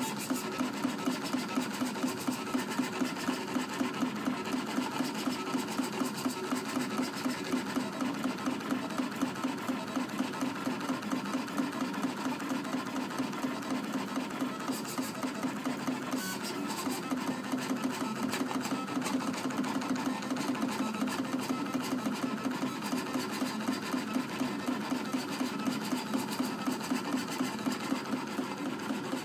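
USCutter vinyl cutter plotter drawing a test pattern with a pen. Its stepper motors whir in an even pulsing, about three pulses a second, as the carriage and paper rollers drive the pen through short straight strokes.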